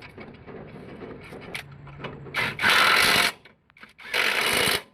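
A power tool run in two short bursts of about a second each, loud and hissing, with lighter workshop clatter before them.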